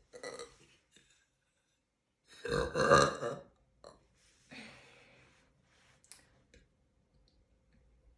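A woman burping: one long, loud burp a little over two seconds in, lasting about a second, after a shorter, softer sound right at the start.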